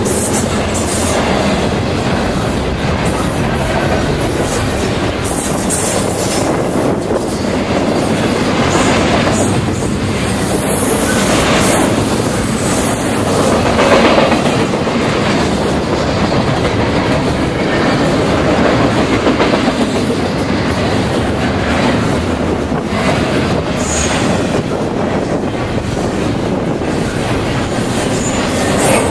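Canadian Pacific double-stack intermodal container train rolling past at trackside: the steady, loud rumble and clatter of steel wheels on the rails as the loaded well cars go by.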